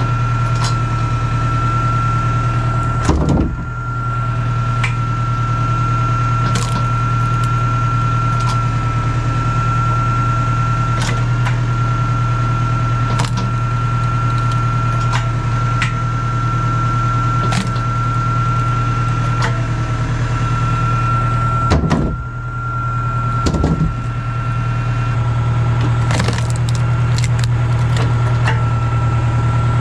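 Tractor engine running steadily at low revs to power a tractor-mounted Carroll Engineering hydraulic log splitter, with a steady high whine under it. Logs knock and crack as the wedge splits them, loudest about three seconds in and again about twenty-two seconds in.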